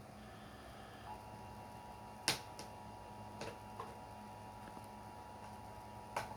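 Quiet room tone with a faint steady electrical hum, broken by a few sharp clicks. The loudest click is about two seconds in and another strong one comes near the end.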